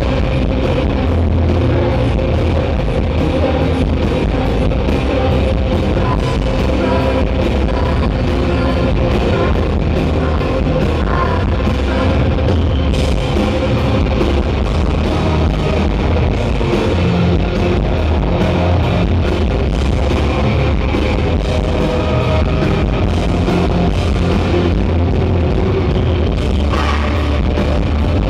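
Live indie rock band playing loudly: distorted electric guitars, bass and a drum kit keeping a steady beat, with a female lead vocal. Heard from the crowd through a phone microphone, so the sound is overloaded and muddy.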